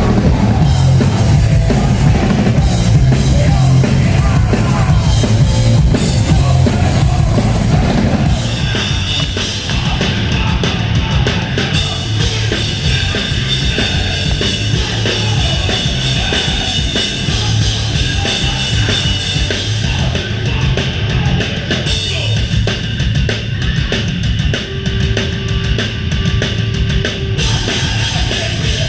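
Hardcore punk band playing live and loud: distorted guitars, bass and pounding drums. About eight seconds in the sound drops a little and changes character, as at a cut to another song.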